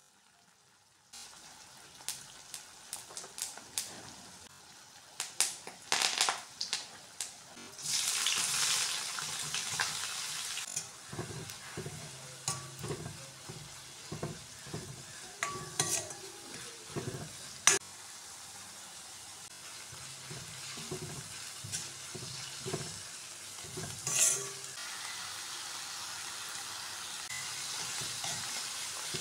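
Sliced onions frying in hot coconut oil in a wok: sizzling and crackling, with a steel spoon scraping and knocking against the pan as they are stirred. Scattered pops come first, then a burst of louder sizzling about eight seconds in.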